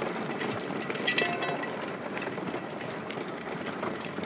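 Fat-tire reverse tadpole electric trike rolling over bumpy dry grass and dirt, its frame and parts rattling and clicking over the divots above a steady hiss of tyre and wind noise.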